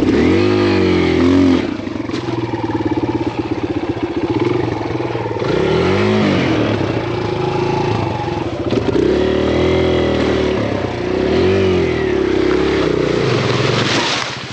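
Kawasaki KLX140RF dirt bike's four-stroke single engine revving up and down under load while ridden through a deep, muddy swamp channel, with the revs rising and falling about five times.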